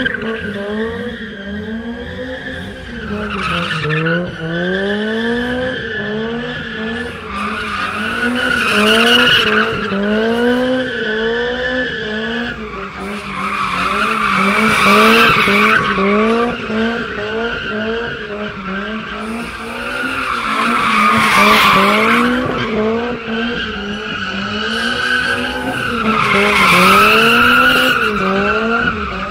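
Drift car sliding in circles: the engine revs up and down in quick surges about once a second, and the tyres squeal loudly in long swells that come back every few seconds as the car comes around.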